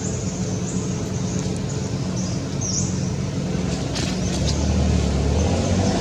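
A motor vehicle's engine running, its low hum growing louder over the last second and a half, with short high chirps over it in the first three seconds.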